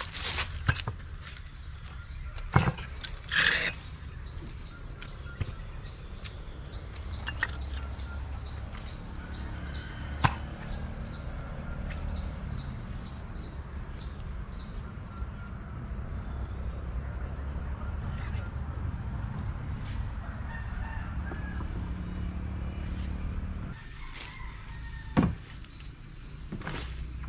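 Outdoor riverbank sound: a bird repeats short high notes, about two or three a second, for some ten seconds over a steady low rumble, with a few sharp knocks and footsteps as the outboard motor is carried down to the jetty.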